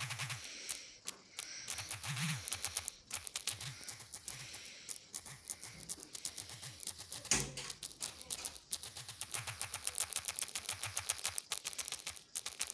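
Small fireworks crackling: rapid pops and clicks, growing faster and denser in the second half, with one louder bang about seven seconds in.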